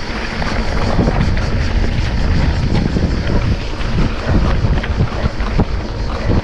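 Wind rushing over the microphone of a mountain bike rider moving at speed, with the tyres rolling on a dirt trail and many short knocks and rattles from the bike going over bumps.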